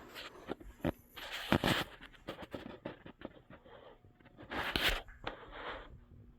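Irregular scrapes, scuffs and knocks, with two louder scraping bursts about a second and a half in and near five seconds.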